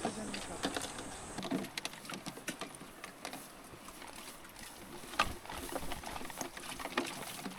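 Footsteps pushing through brush: irregular twig snaps, crackles and rustles of undergrowth.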